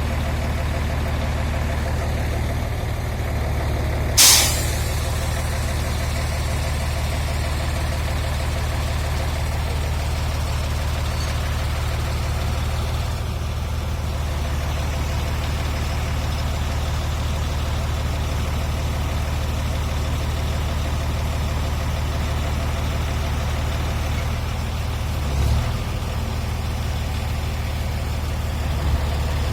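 Heavy diesel engine running steadily at low revs, with one short, sharp hiss of released air about four seconds in.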